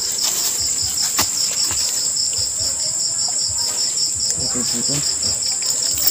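Night insect chorus, crickets chirping: a steady high trill with a pulsed chirp beneath it, about five pulses a second. A couple of sharp clicks stand out early on.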